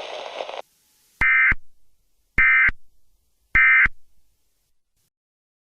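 Emergency Alert System digital data tones: three short warbling bursts about a second apart, the end-of-message code sent three times to close the alert.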